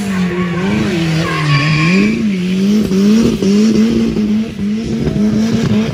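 Drift car's engine held at high revs, its pitch wavering up and down with the throttle, while the tyres spin and squeal through a smoky slide.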